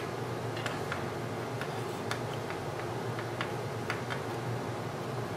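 Light, irregular clicks and taps of fingers and string handling a metal mason jar lid band while a knot is tied, over a steady low background hum.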